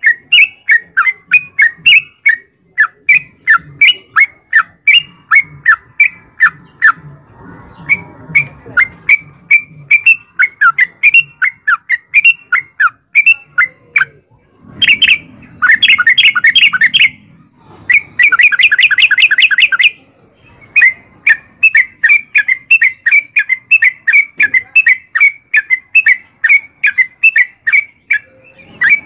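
Yellow-vented bulbul singing a long run of short, rapid bubbly notes, about three a second. Around the middle it breaks into two denser, faster trilling bursts of about two seconds each.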